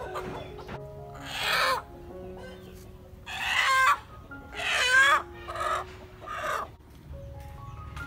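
A chicken squawking loudly in distress as it is grabbed from a bamboo cage and held, about five harsh calls in a row.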